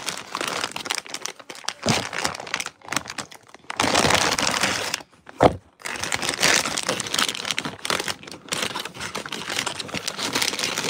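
Plastic packaging crinkling and rustling close to the phone's microphone, with a louder stretch of rustling about four seconds in.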